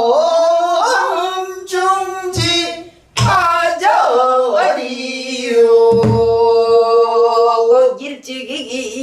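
A woman singing a pansori danga in full voice, with long held notes that bend and waver, over her own buk barrel drum. The drum sounds as about three low strokes, two near three seconds in and one about six seconds in.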